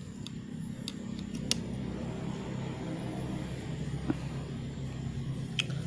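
A few sharp clicks of bonsai pruning shears snipping thin wired twigs, over a steady low hum.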